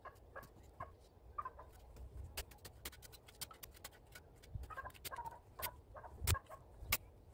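Long-handled digging tool chopping and scraping into dry soil and stones: a run of sharp, irregular clicks and scrapes, with a heavier thud a little after six seconds in. Short pitched chirps come in here and there.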